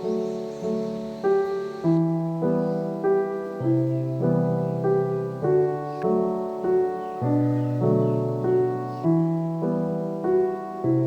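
Soft instrumental background music led by a piano or keyboard, with notes and chords changing at a steady, even pace.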